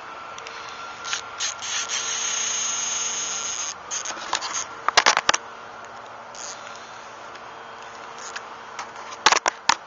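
Rear-drag spinning reel's drag buzzing as a hooked carp pulls line, first in short bursts and then in one run of about two seconds. A few sharp knocks follow, two near the middle and two near the end.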